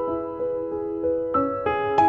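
Background music: a piano playing a slow, gentle melody, single notes struck one after another and left to ring.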